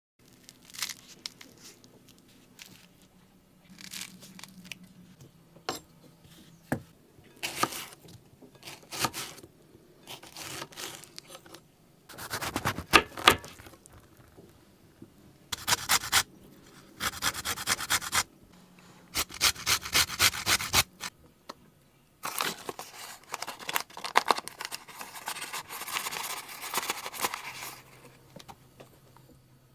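Scraping and rubbing strokes of hand work with kitchen utensils, coming in short bouts of a second or two with pauses between. Several bouts are rapid runs of quick repeated strokes, the loudest about two-fifths of the way in.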